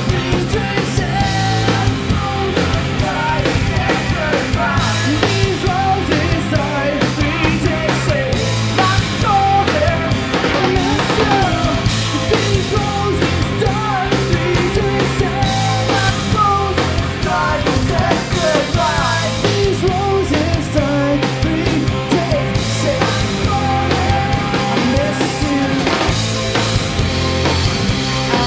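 Live rock band playing loudly: distorted electric guitars, bass and a drum kit, with a melody line that bends and wavers in pitch over the top.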